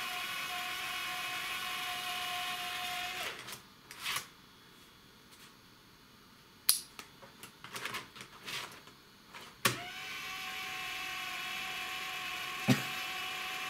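The internal 3.5-inch floppy drive of a Compaq LTE Elite 4/50CX laptop runs with a steady high whine for about three seconds, then stops. This whine is the sign of a worn, slipping drive belt. For several seconds there are only scattered clicks and handling of a floppy disk, then the drive starts whining again, with one sharp click near the end.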